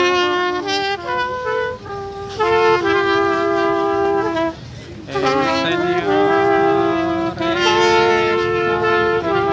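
Brass band playing a slow procession tune in long held chords, with a short break about halfway through.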